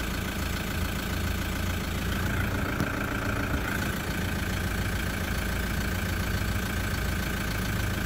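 Toyota Land Cruiser 120 Prado's rear disc brakes squealing, a thin steady high tone over the engine idling as the vehicle creeps along; the squeal comes in about two seconds in and is strongest for a second or so before running on more faintly. The squeal comes from genuine Toyota rear pads, which began squealing once bedded in and kept on even with new rotors.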